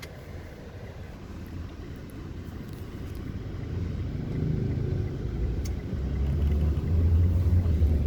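Steady low vehicle rumble, growing louder over the second half.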